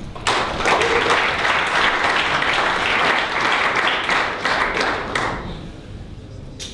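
Audience applauding at the end of a talk, a dense patter of many hands for about five seconds that then dies away.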